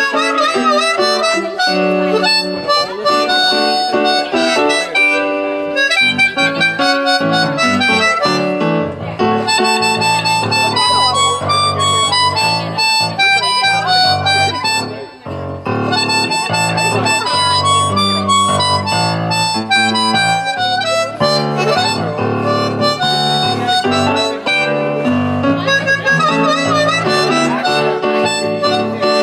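Amplified blues harmonica played live into a handheld microphone, with sliding, bent notes over an electric keyboard accompaniment. The music drops away briefly about halfway through.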